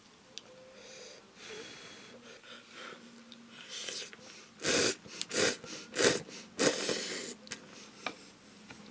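A person slurping instant cup noodles: a run of about four loud, quick slurps about halfway through, with softer slurping sounds before and after.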